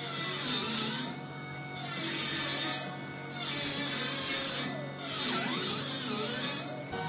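Four long rasping strokes of steel being dressed by hand at a joint of a welded steel-tube frame, each a second or more with short pauses between, over background music.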